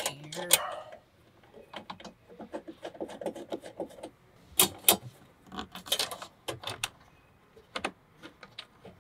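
Metal grid storage panel being fitted and fastened inside a vehicle: a string of sharp clicks, taps and light metallic rattles from the panel, its mounting hardware and a hand tool, loudest about halfway through.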